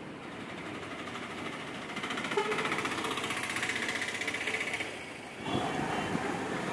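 Bus engines running close by amid street traffic, with a fast rattling clatter that grows louder about two seconds in. The sound changes abruptly about five and a half seconds in.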